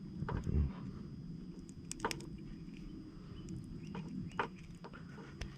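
Handling of rigging cable and small metal fittings: a few scattered light clicks and taps over a low steady hum.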